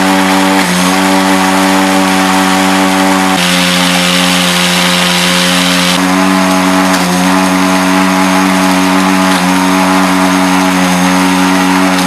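Small electric motor of a homemade coffee grinder running loudly with a steady hum that dips briefly in pitch a few times. A higher hiss joins it from about three to six seconds in.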